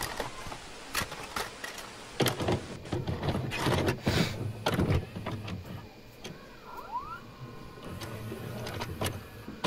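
Videocassette recorder mechanism working as a tape is loaded and set to play: a run of irregular mechanical clicks and clunks over a low motor whirr.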